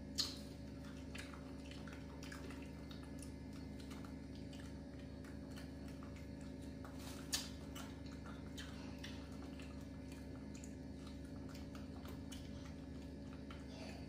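Quiet eating at a plate: faint small clicks and chewing, with a metal spoon clicking sharply against a plate twice, at the start and about halfway through, over a steady low hum.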